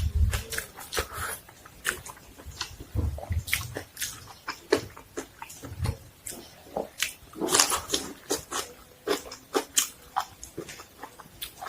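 A person eating close to the microphone: irregular crisp crunches and wet smacks of chewing, several a second, with a few low thumps near the start and about three and six seconds in.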